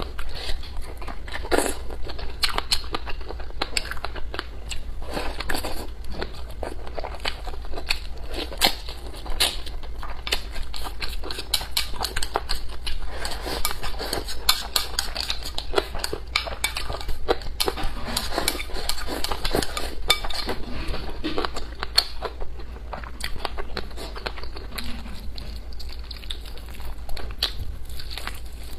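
Wooden chopsticks clicking and scraping against a ceramic bowl as rice and braised pork are shovelled in, with close-up eating and chewing sounds; many quick sharp clicks throughout.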